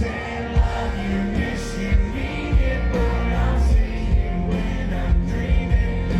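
Live country music: a male singer with a full band of guitars and drums, the drums hitting in a steady beat.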